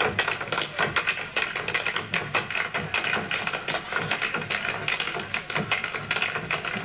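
Clogging shoes' metal taps striking a wooden stage in quick, rhythmic patterns as a line of dancers steps together, with no music.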